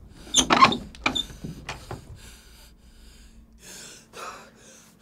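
A man straining and gasping as he contorts, with a loud crackling burst about half a second in, a few sharp clicks, then several breathy gasps.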